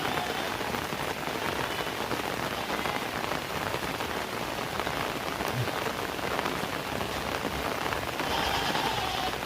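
Heavy rain falling steadily as a dense, even hiss. Near the end, a pitched call with several overtones sounds for about a second and dips slightly in pitch as it ends.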